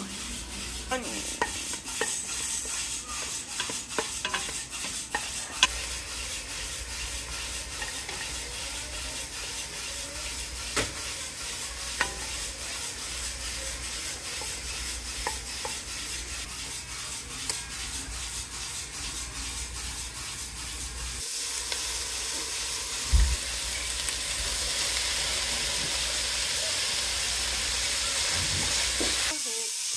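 Food frying in a pot or pan while a spoon stirs it: a steady sizzle with scattered clicks and scrapes of the utensil. About two-thirds of the way through the sizzle grows louder and brighter, and a single knock against the pan follows shortly after.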